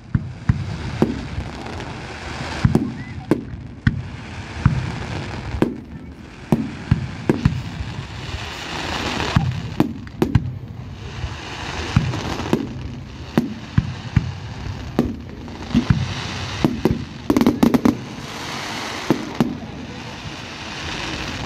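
Fireworks display: aerial shells bursting overhead with deep bangs, irregularly, about one or two a second, a hissing crackle between them, and a quick cluster of bangs about three-quarters of the way through.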